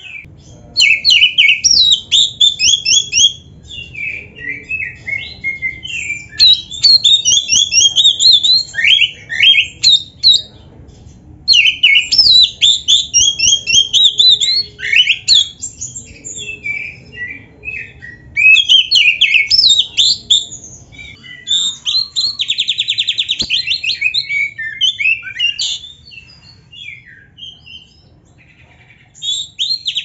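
Black-breasted oriental magpie-robin (kacer) singing a loud, varied song of fast whistled and chattering phrases, rich in mimicked 'isian' phrases of other birds, in bursts with short pauses. A buzzy rapid trill comes about two-thirds of the way through and again near the end.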